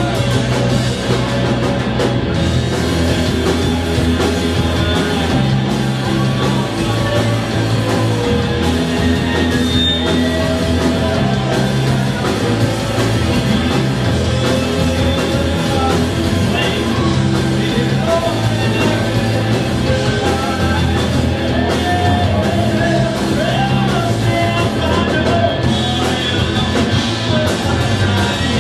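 Rock band playing, with electric guitar, bass and drum kit at a steady loud level; the bass notes change about every second or two.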